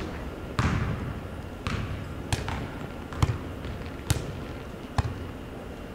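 A volleyball struck on forearms and hands as two players pass it back and forth: about six sharp, echoing impacts at irregular intervals of roughly a second.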